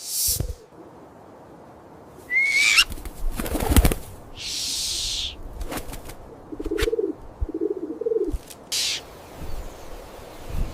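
Bird wings flapping in short bursts, with a brief chirp and two low cooing calls close together a little past the middle.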